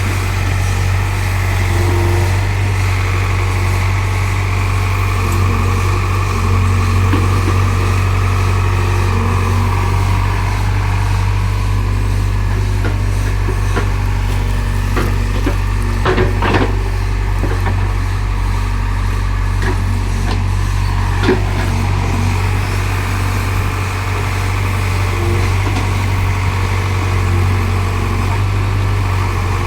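Excavator's diesel engine running steadily while digging, with a strong low hum, and two sharp knocks about halfway through and a few seconds later.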